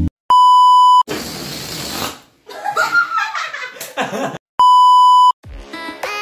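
Two loud, steady one-tone bleep sound effects, each under a second, near the start and about two-thirds of the way through. Between them come about a second of hiss, then a short stretch of voices and laughter. Music with a beat starts near the end.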